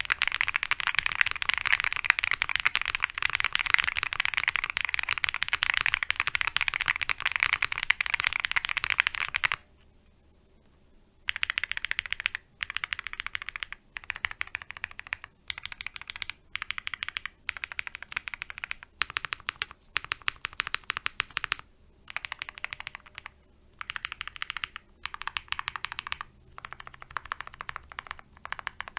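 Typing on an OwlLabs Mr. Suit custom mechanical keyboard with lubed polycarbonate-housing Holy Panda tactile switches on a gasket-mounted polycarbonate plate with PE foam. Fast, continuous typing for the first nine seconds or so, a brief pause, then typing in short bursts with small gaps between them.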